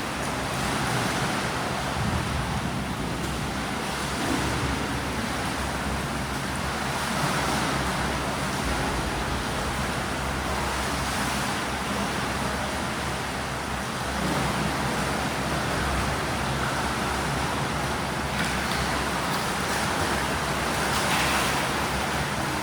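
Swimming pool water noise: a steady wash of splashing from swimmers, with a low hum underneath.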